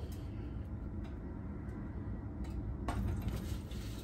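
Quiet kitchen room tone with a low steady hum and one light tap a little before three seconds in.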